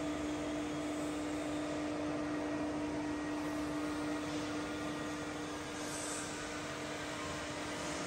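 Hwacheon HMV-1100 vertical milling machine's power feed driving the table's cross travel at feed rate: a steady motor hum with one clear held note.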